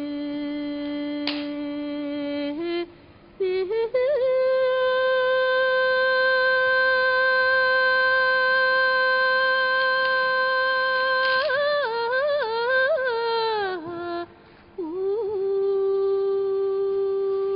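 A single voice singing long, held wordless notes: a lower note stepping up to a long high note. About two-thirds of the way through, the high note breaks into a wavering, falling run, then there is a short pause and another held note.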